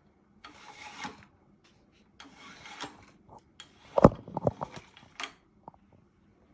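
Handling noises: two stretches of rubbing or scraping, then a quick run of knocks and clicks, the loudest about four seconds in.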